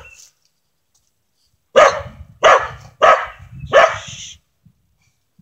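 A corgi barking four times in quick succession, starting about two seconds in, at a squirrel up in a tree.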